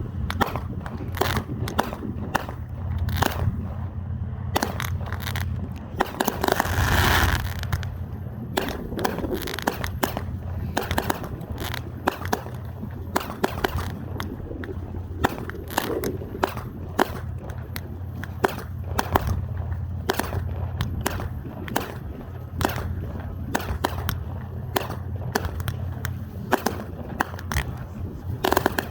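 Fireworks going off: a long run of sharp cracks and bangs at irregular intervals, with a longer hissing burst about seven seconds in.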